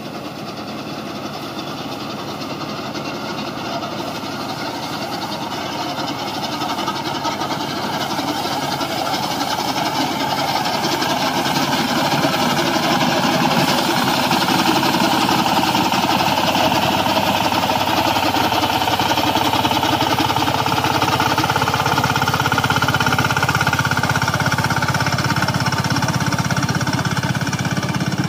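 Mini rice combine harvester running while harvesting rice: its engine and cutting and threshing works make a steady mechanical sound. The sound grows louder over the first dozen seconds as the machine comes closer, then stays loud.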